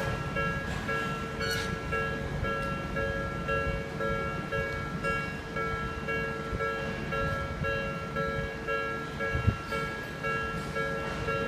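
Japanese railroad crossing warning bell ringing over and over with an even, repeating electronic tone, while a train rumbles low through the crossing. A single sharp clack stands out near the end.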